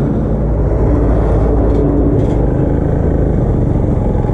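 Motorcycle riding along a road, its engine running steadily under heavy wind and road noise.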